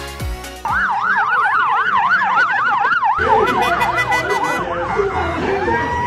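Police escort siren in a fast yelp, its pitch rising and falling about three times a second. Near the end it settles into a steady held tone.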